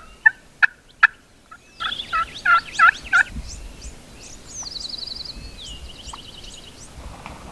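Gould's wild turkey gobbling: a short burst of rapid rattling notes right at the start, then a louder full gobble about two seconds in. Fainter high chirps and trills from small songbirds follow.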